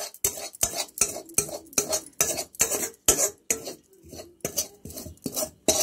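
A steel ladle clinking and scraping against a metal kadhai and steel plate while stir-fried moringa leaves are scooped out, in a quick run of sharp clinks about three a second.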